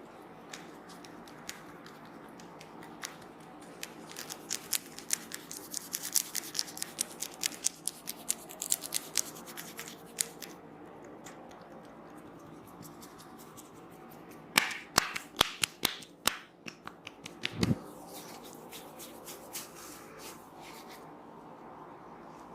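Rapid, crisp clicks and crackles from hands working over the head and hair in a head massage: a long run of fast clicks about three seconds in, then a shorter, louder run of sharp clicks later, ending in a dull thump.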